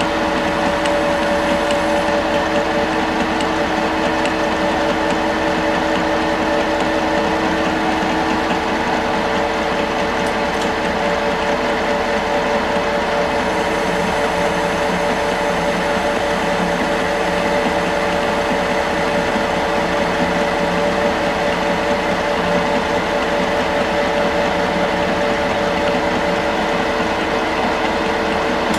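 Metal lathe taking a turning cut on bar stock under power feed at about ten thousandths per revolution: a steady whine of several even tones from the running machine over the noise of the tool cutting.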